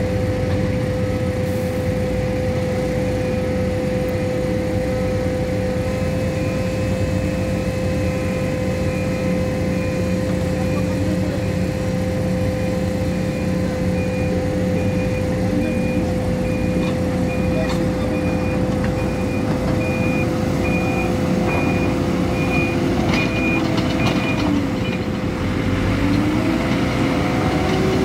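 Hidromek 102B Supra backhoe loader's diesel engine running steadily while working, with its reversing alarm beeping repeatedly and stopping near the end.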